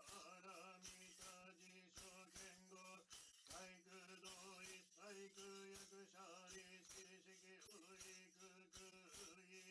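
Buddhist chanting on a soundtrack: a male voice chanting over a steady low drone, with jingling bells struck in a regular rhythm about three times a second.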